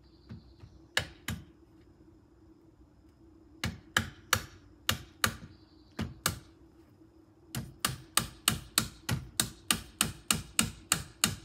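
Hammer tapping on a roof-mounted bike rack's fitting in sharp blows: two about a second in, a few spaced pairs in the middle, then a quick even run of about three blows a second near the end.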